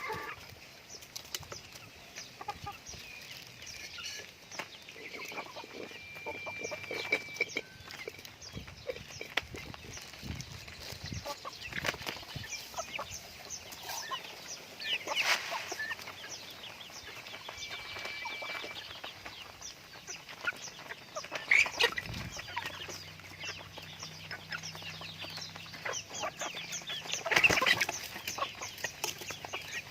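Domestic chickens clucking and calling in a flock, many short calls scattered through, with a few louder calls in the middle and the loudest a little before the end.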